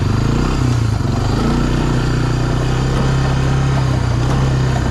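1999 Honda FourTrax 300 ATV's single-cylinder four-stroke engine running under way. Its pitch rises a little about half a second in, then holds steady.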